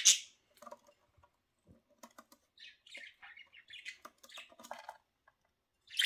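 Pet budgerigars: a brief loud call at the start, then light scattered ticking and rustling as a budgie picks through loose seed in a wooden box, with soft intermittent chirps.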